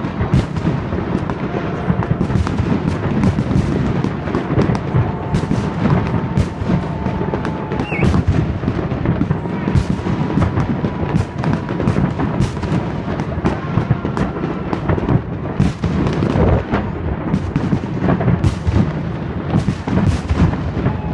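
Fireworks display: a dense, continuous barrage of shell bursts and crackles, many bangs every second overlapping one another.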